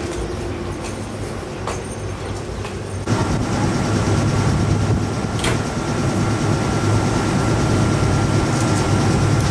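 Kintetsu Aoniyoshi electric express train running on the track close by: the rumble jumps suddenly louder about three seconds in as it draws level and stays loud, with a steady high whine over it and a sharp click about halfway through.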